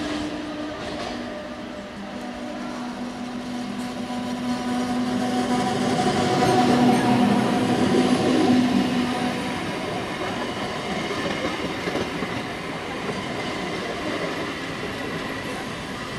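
Electric multiple unit suburban local train passing close by, wheels rumbling on the track under a steady hum. It is loudest about six to nine seconds in, as the coaches come alongside.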